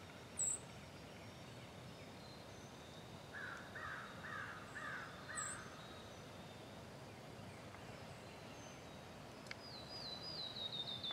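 Wild birds calling over a faint outdoor hiss: two short high chirps, a run of five evenly spaced calls around the middle, and a series of whistled notes that fall in pitch and quicken near the end.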